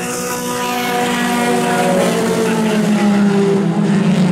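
A pack of mini stock race cars running on a dirt oval. Several engine notes overlap, sliding down in pitch over the first couple of seconds and then holding and climbing again as the cars go through the turn.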